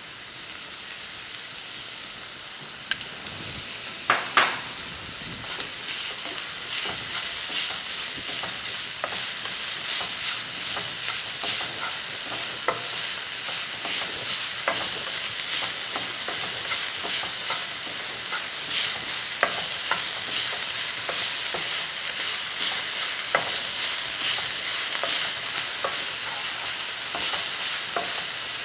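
Chopped onions sizzling in oil in a nonstick frying pan over a turned-up gas flame, stirred with a wooden spatula that knocks and scrapes against the pan. The sizzle grows louder over the first several seconds, and a few sharp knocks come about three to four seconds in.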